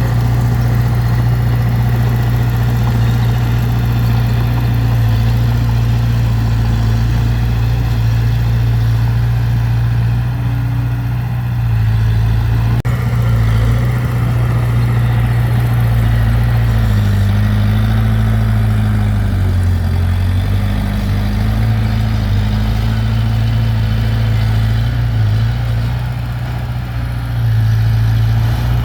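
Heavy diesel engine of earth-moving equipment running steadily, its pitch dipping and recovering a few times past the middle as the load changes.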